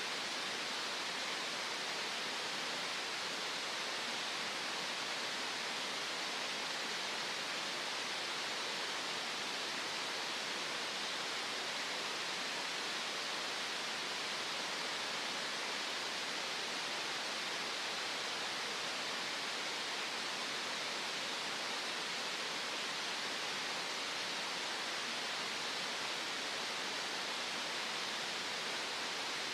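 Green noise: a steady, unchanging synthetic hiss, strongest in the upper middle range and thin in the bass.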